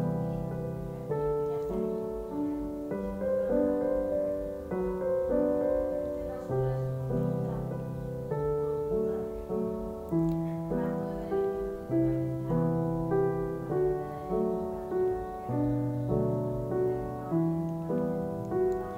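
Background piano music: a gentle melody of evenly paced notes over low notes that change every second or two.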